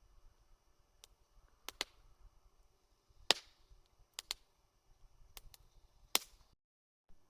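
Campfire crackling: wood in the fire giving off sharp, irregular pops, the loudest about three seconds in and again near the end, before the sound cuts out briefly.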